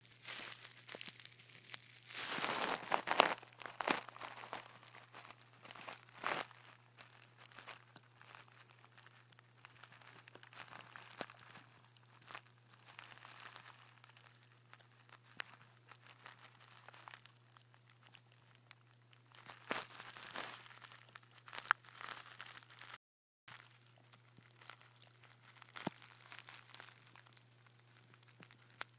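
A dog gnawing and crunching on a chew, with irregular wet crunches and scrapes, louder in spells about two to four seconds in and again near twenty seconds. A faint steady low hum runs underneath.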